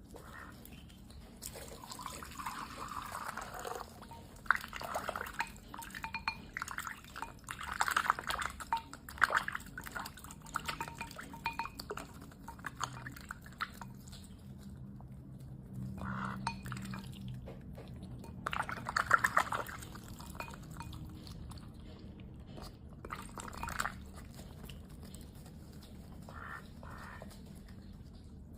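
A duck's bill splashing and slurping in water as it feeds on fish, in bouts of a few seconds with quieter pauses between.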